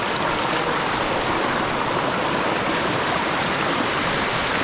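A shallow river tumbling over small rocky cascades and low waterfalls, heard close to the water: a steady, even rush and splash.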